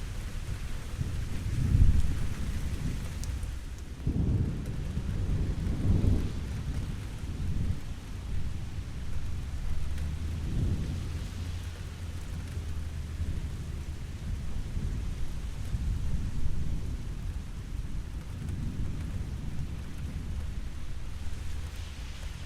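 Steady rain falling, with low rolls of thunder that swell and fade, the loudest about two seconds in and another from about four to six seconds in.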